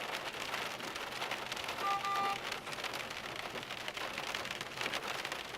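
Steady rain falling, a dense patter of drops. About two seconds in, a short steady tone sounds for about half a second.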